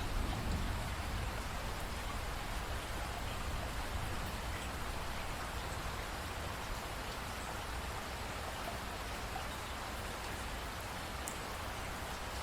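Steady rain falling, an even hiss of drops with a low rumble beneath.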